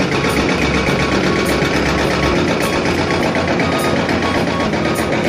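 Quarry chain-arm saw running steadily, its cutting chain working down into the stone bench.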